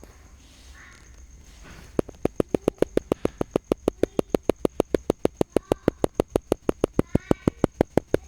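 A fast, even run of sharp clicks, about six or seven a second, starting about two seconds in after a stretch of faint background.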